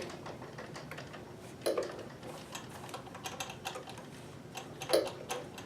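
Consew sewing machine stitching slowly through felt: irregular light ticking from the needle mechanism, with a louder knock about a second and a half in and another near the end.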